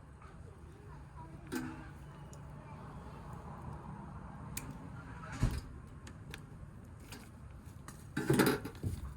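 Metal knocks and clanks of parts and tools being handled, with a sharp knock about halfway through and a louder clatter near the end.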